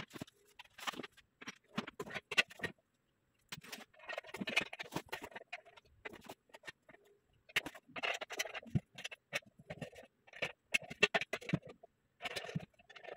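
Black metal bed-frame rails being handled and lifted out of their cardboard box: scraping against the cardboard, light knocks and rustling, in irregular bursts with short pauses.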